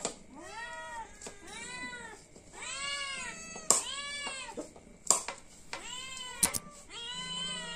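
Hungry domestic cat meowing over and over for food, about six drawn-out meows that rise and fall in pitch. A few sharp clicks fall between the meows.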